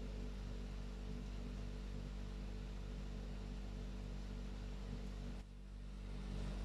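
Steady low electrical hum with a faint hiss, room tone under the recording, dropping briefly about five and a half seconds in.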